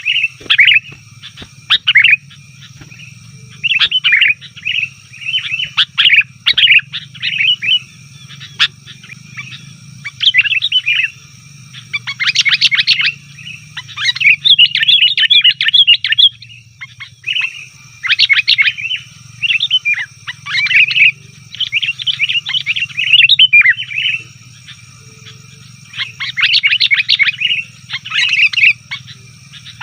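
Sooty-headed bulbuls calling noisily: bursts of rapid, chattering scolding notes every second or two, the rowdy calling used as a lure to draw other bulbuls.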